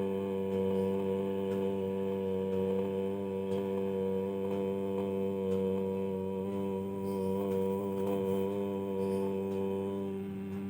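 One voice chanting Om, holding the hummed 'mmm' as one long unbroken note at a steady pitch.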